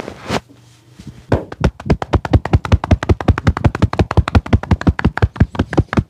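Percussive back massage: the barber's fists drumming rapidly on the customer's back through a towel, an even run of sharp blows at about eight or nine a second, starting just over a second in.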